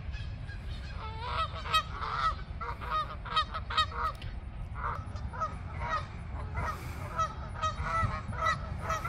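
Canada geese honking: a string of short honks in quick succession, starting about a second in.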